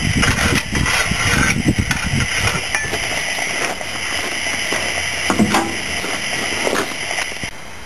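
A 7¼-inch gauge live-steam locomotive standing with a steady hiss of steam, with irregular metal knocks and clatter over the first few seconds as its fire is dropped from the firebox. The hiss stops abruptly near the end.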